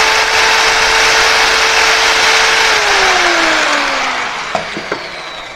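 Handheld electric car polisher with a foam pad running at a steady speed with a motor whine, then switched off about three seconds in, the whine falling and fading as it spins down. A few light clicks near the end.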